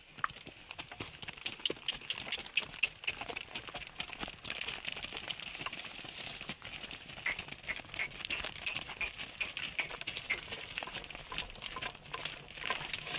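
A yoked pair of bullocks walking on a dirt track: an irregular run of hoof steps mixed with people's footsteps.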